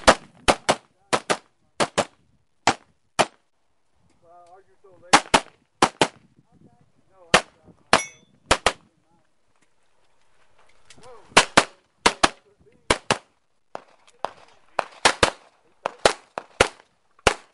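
Semi-automatic pistol fired rapidly during a practical shooting stage, the shots coming mostly in quick pairs, two per target. The firing comes in three strings, near the start, around the middle and through the last third, separated by pauses of a second or two.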